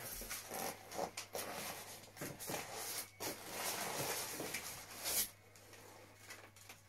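Irregular rustling and light knocks of packaging being handled while a monitor is unboxed, dying down about five seconds in.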